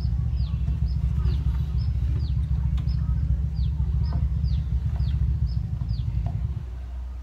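A steady low mechanical hum, the loudest sound, drops away about six and a half seconds in. Over it a bird repeats a short falling whistle about twice a second, and there are a few light knocks from PVC pipe fittings being handled.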